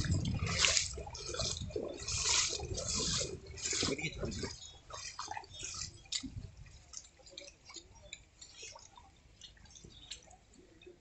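Footsteps splashing through shallow floodwater, a wet slosh every half second or so, stopping about four and a half seconds in; after that only faint drips and small splashes of water.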